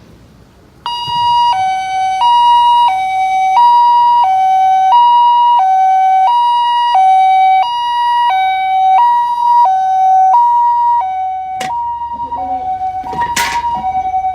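SAP-500R electronic siren on an ambulance sounding the two-tone 'pii-koo' hi-lo pattern, which starts about a second in. It alternates steadily between a higher and a lower note, each held about two-thirds of a second. Near the end there is a sharp click and a brief loud rush of noise over the siren.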